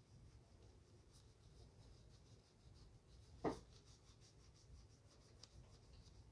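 Shoe being shined: faint, repeated rubbing strokes on the leather. A single short knock comes about three and a half seconds in.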